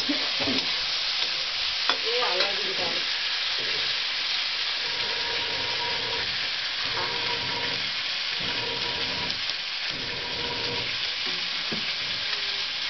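Food frying with a steady sizzle in a metal wok over a wood fire, stirred with a metal spatula.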